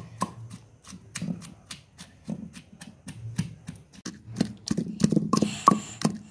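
Wooden pestle pounding onions, garlic and ginger into a paste in a small black stone mortar (kundi): a steady run of dull thuds about three or four a second, some with a sharper knock of wood on stone.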